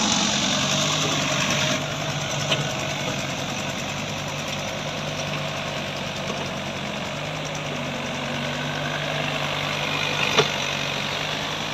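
A JCB excavator's diesel engine running steadily, a little louder for the first two seconds and then settling, with two brief clicks.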